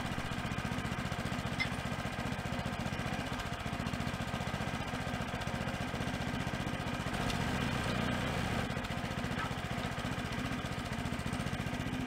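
Kubota compact tractor's three-cylinder diesel engine idling steadily, with a few faint knocks over it.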